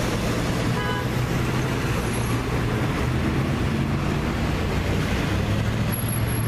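Steady street traffic with vehicles driving close past, engines running and tyres on the road, with a brief high tone about a second in.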